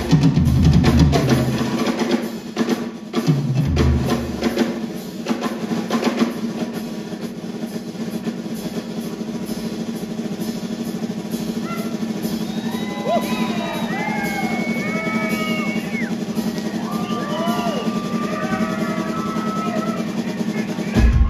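Drum kit solo: kick-drum and snare hits for the first few seconds, then a long, fast, even drum roll.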